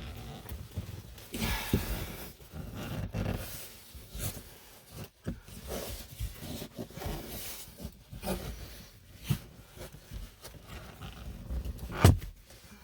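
Plastic dashboard trim panel being pried at with a tool: irregular scraping and clicking of the clipped panel, with one sharp, loud snap near the end.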